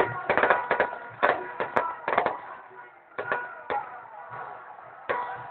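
Firecrackers and fireworks exploding in sharp, irregular bangs, packed close together in the first half with a short lull before a few more, over a steady background din.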